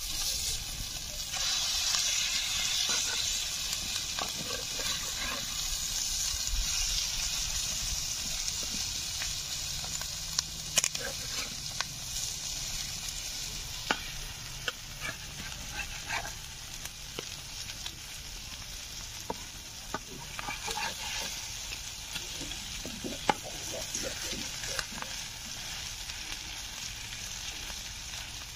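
Fish roe frying in oil in an iron kadhai, sizzling loudest in the first several seconds and then easing off. A metal spatula scrapes and knocks against the pan now and then as the roe is turned.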